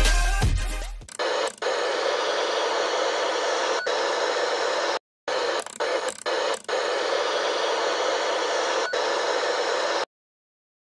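Electronic intro music fading out in the first second, then steady radio static hiss that cuts out dead several times for a split second and stops abruptly about a second before the end.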